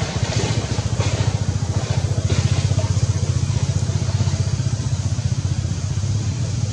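An engine idling steadily: a loud, low thrum with a fast, even pulse.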